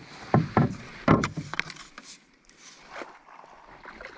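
Several sharp knocks and clunks of gear bumping a canoe, spaced irregularly and fading out after about three seconds.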